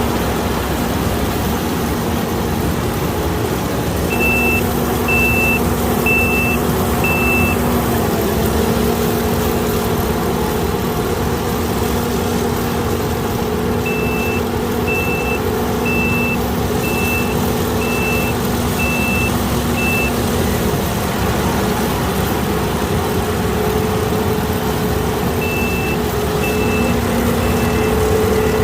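Kukje (KM) KC5130 rice combine harvester's engine running steadily with a constant hum. An electronic warning beeper sounds in three runs of short high beeps, about one a second: four a few seconds in, seven in the middle and three near the end.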